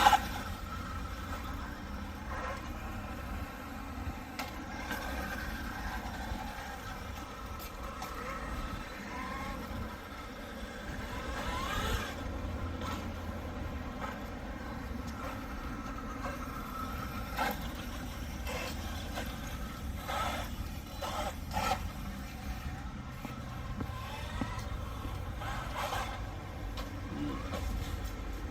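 Large 1/6-scale electric RC rock racer (Losi Super Rock Rey) driving, with its brushless motor whining and gliding in pitch over a steady low rumble of tyres on concrete, and a few short knocks as it hits bumps and edges.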